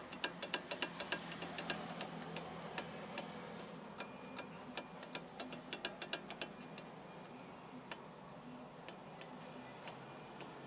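Brake caliper being rocked by hand, giving a rapid, irregular series of light metallic clicks that thin out toward the end. The clicking is the sign of play in the caliper, the cause of a knocking that sounds like a suspension fault over bumps.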